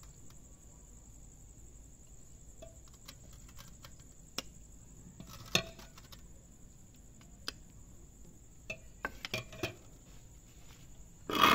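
A metal ladle clinks and scrapes against an aluminium cooking pot and small aluminium bowls as thick spinach-and-meat curry is dished out: a few scattered clinks, a quick run of them later on, and a louder clatter near the end. A steady high chirring of crickets runs underneath.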